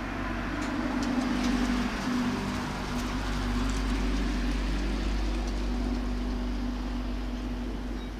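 A vehicle running close by: a steady low hum under a wash of noise, swelling about a second in and then holding.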